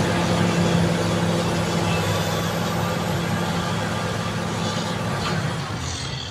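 Caterpillar D7G bulldozer's six-cylinder diesel engine running steadily under work, easing off a little near the end.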